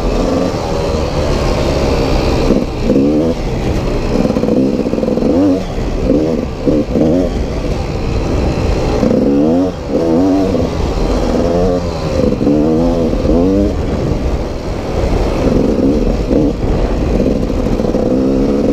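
Dirt bike engine under way, its pitch rising and falling over and over as the throttle is opened and closed.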